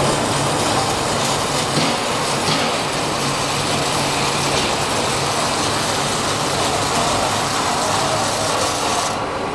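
Robotic arc welding: a steady, dense crackling hiss from the welding arc, thinning out in the high range near the end.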